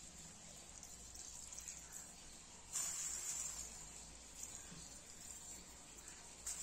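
Thin plastic bag crinkling as rice is shaken out of it: one rustle of about a second about three seconds in and a brief one near the end. Under it runs a faint steady high hiss.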